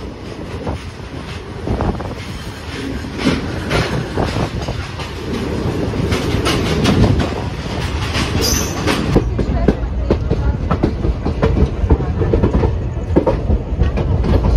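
Express train's coach wheels rolling and clattering over the rails, a steady rumble with a dense run of clicks that gets louder and busier about halfway through, heard from the open coach doorway beside a line of goods wagons.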